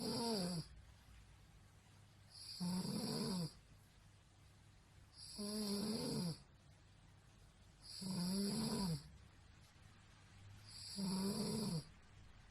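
A woman snoring, five snores about 2.5 to 3 seconds apart. Each lasts about a second and drops in pitch, with a hiss above it.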